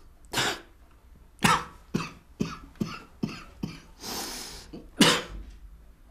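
A man coughing, likely from cigarette smoke: two hard coughs, a run of five quicker, weakening coughs, a noisy breath in, then one last loud cough.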